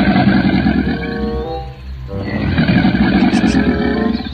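A crocodile roar sound effect: two long, rough roars of about two seconds each, the second starting just after the first fades, with background music under them.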